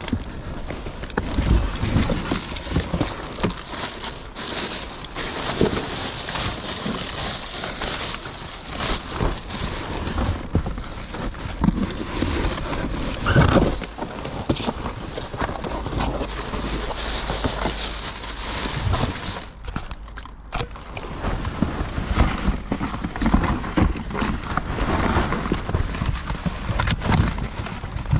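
Gloved hands rummaging through cardboard boxes, papers and craft supplies: continuous rustling and crinkling with frequent light knocks.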